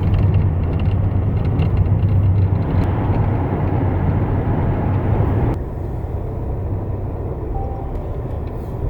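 Airbus A320 cabin noise from a window seat: a steady rumble of engines and rushing air with a strong low hum. About five and a half seconds in it drops in level and loses its hiss.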